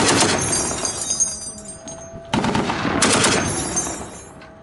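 Heavy gunfire from a vehicle-mounted weapon: a loud shot or short burst at the start, another about two and a half seconds in and a third just after it, each with a long fading tail and a high ringing.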